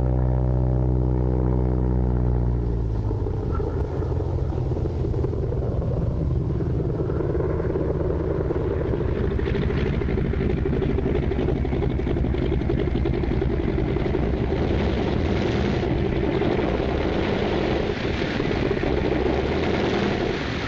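Single-engine propeller plane's piston engine droning, its pitch dipping a little over the first few seconds. It then settles into a rougher, steady engine noise.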